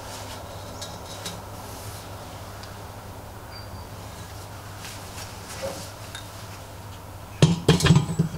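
Faint handling sounds, then near the end a quick run of sharp metal clanks and knocks as a power drill in its steel clamp bracket is set down and fitted onto the steel tube frame of a homemade lathe.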